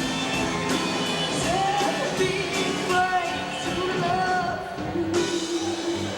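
Live rock band playing with a singer holding long notes, drum hits keeping a steady beat, as picked up by a camcorder microphone in the hall.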